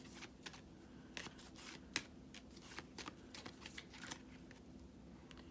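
A deck of angel answer oracle cards being shuffled by hand: faint, irregular soft clicks and slides of the cards against each other.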